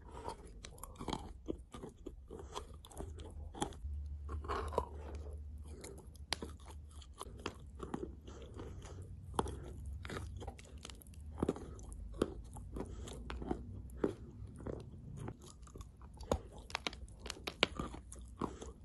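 Biting and chewing a chunk of clay-coated white chalk: many irregular sharp crunches as it snaps and crumbles in the mouth.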